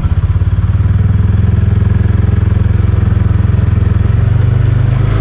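Vehicle engine running with a loud, low, evenly pulsing rumble, heard close up.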